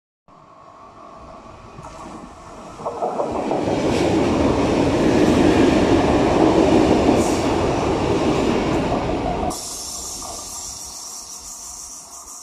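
A Régio2N double-deck electric multiple unit passes close along the platform. Its rumble and wheel noise build up, with a few sharp clicks in the loud part, then drop suddenly as the last car goes by, leaving a fading rumble as the train draws away.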